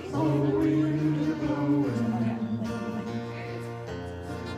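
Worship band playing the instrumental introduction to a song: sustained chords that change about two seconds in and again near the end.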